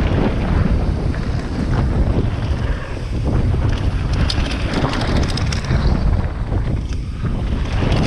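Wind buffeting a helmet-mounted GoPro's microphone on a mountain bike ridden downhill at speed, with a heavy low rumble from the tyres on the dirt trail and scattered clicks and rattles throughout.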